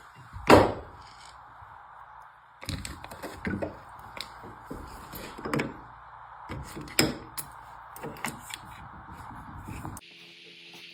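Irregular knocks, clicks and scrapes of metal being worked, over a steady machine hum; one loud knock about half a second in, then bursts of knocking from about three seconds on.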